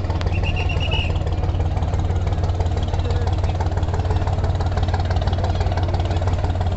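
MV Parabat-15 passenger launch's diesel engines running in a steady low, throbbing drone as the vessel passes close, with crowd voices over it.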